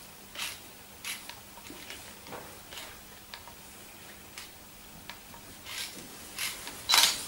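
Soft rustling of hands running through and fluffing freshly blow-dried hair, in short strokes about once a second, with a louder rustle near the end.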